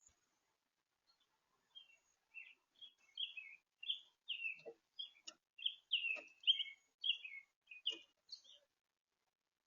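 Small birds chirping: a quick run of short, high chirps for several seconds, with a few sharp clicks among them.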